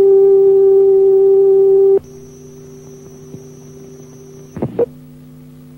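Steady electronic line-up tone on the soundtrack of an old commercial's film countdown leader. It is loud and cuts off suddenly about two seconds in, leaving a quieter low hum with a faint high whine, and then a brief wavering sweep near the end.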